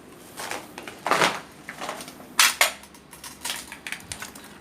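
Footsteps crunching over debris on a wrecked floor: irregular sharp crunches and scrapes, the loudest about two and a half seconds in.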